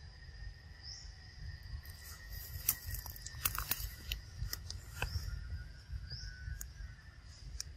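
Young macaque biting and chewing soft ripe fruit: wet tearing and smacking clicks, densest in the middle, over steady insect trilling with short repeating chirps.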